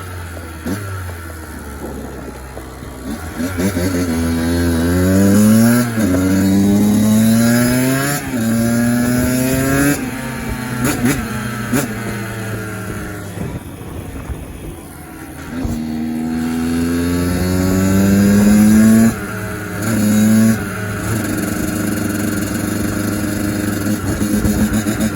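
Kawasaki KX85's single-cylinder two-stroke engine being ridden hard, accelerating up through the gears twice, its pitch climbing and then dropping at each gear change. Between the two runs it eases off to slower running.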